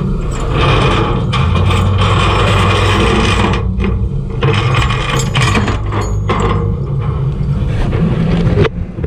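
Loose metal rattling and scraping over a tow truck's running engine: tow chain and hooks being handled and dragged on the steel flatbed deck, with a brief pause a little after three and a half seconds.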